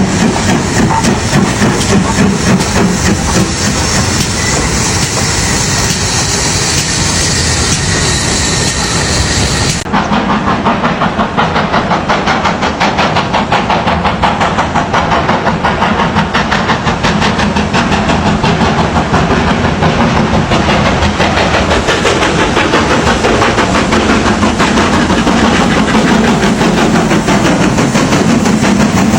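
Steam train running, with hiss and a rapid regular beat. About ten seconds in, the sound cuts abruptly to another take that is duller, and the regular beat continues.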